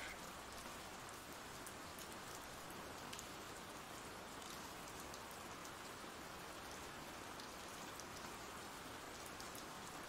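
Faint, steady ambient rain: an even hiss of rainfall with scattered small drop ticks.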